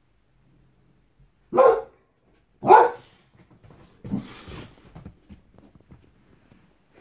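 Boxer dog giving two loud, deep guarding barks a little over a second apart, then a rougher, noisier bark, followed by a few faint clicks.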